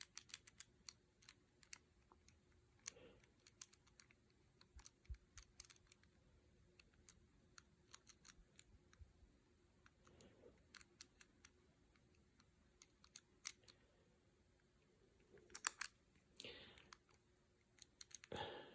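Faint, irregular small clicks of a Master Lock 875 combination padlock's number wheels being turned and wiggled one step at a time while the shackle is held under tension, a few louder clicks a little before the end.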